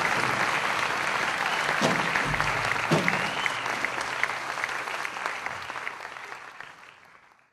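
Audience applauding, a mass of hand claps that dies away toward the end.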